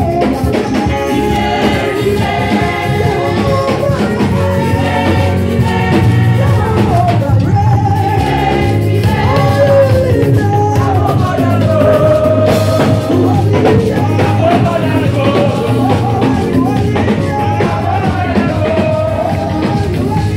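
Church praise music: voices singing a melody over a band with drum kit, loud, while the congregation dances.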